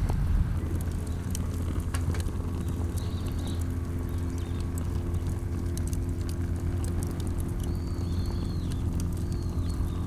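Steady low drone of a small boat's engine running out on the water, with a few short, high bird calls over it.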